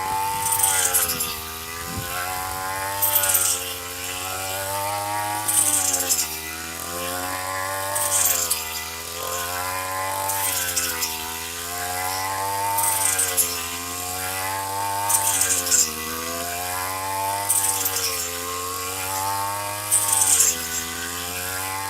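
Handheld rice harvester's 32.6 cc two-stroke engine running at high speed, its pitch dipping and recovering about every two and a half seconds as the blade takes load. Each dip comes with a short hissing swish as stalks are cut.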